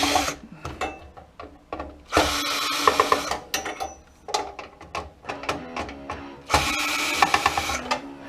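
Power drill/driver running in three short bursts, backing out screws, with clicks and taps of metal parts and screws being handled between the bursts.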